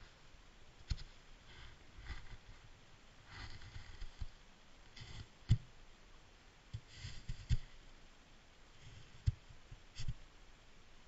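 Faint, irregular knocks and soft scraping picked up underwater beneath ice, the sharpest knock about halfway through.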